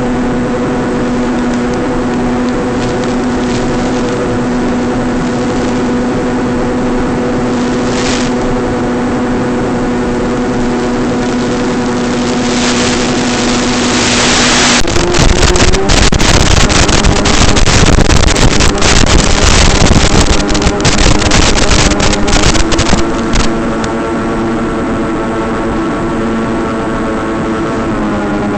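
Electric motor and propeller of an RC flying wing droning at a steady pitch, heard through the analog FPV audio feed. About halfway through, a loud static hiss with crackling takes over for around eight seconds, typical of the 5.8 GHz video link breaking up, and then the motor drone returns at a changed pitch.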